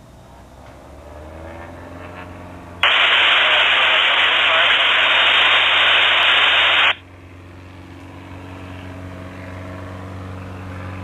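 A Piper PA-28R-201 Arrow III's four-cylinder Lycoming engine runs steadily and grows louder as the plane begins its takeoff roll. About three seconds in, a loud burst of static from an airband radio cuts in for about four seconds, then stops abruptly.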